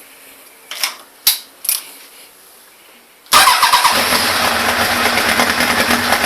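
A few light clicks, then about three seconds in the Honda CB1000 Big One's inline-four engine is cranked briefly on the starter and catches, running fast and steadily. It is a cold start without choke.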